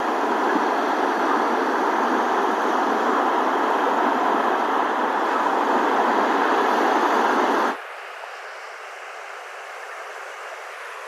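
Steady roar of sea surf and wind at the shore. About eight seconds in it drops suddenly to a quieter, thinner hiss.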